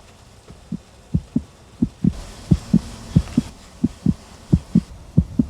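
Heartbeat sound effect: deep, paired lub-dub thumps, about one and a half beats a second, growing louder over a low hum.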